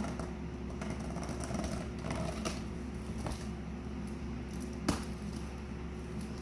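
A prize package being handled and opened: scattered small clicks and soft rustling, with one sharp click about five seconds in, over a steady low hum.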